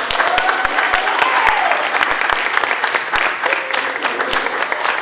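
A room full of people clapping, with one drawn-out cheer rising and falling over it about a second in and a fainter voice later.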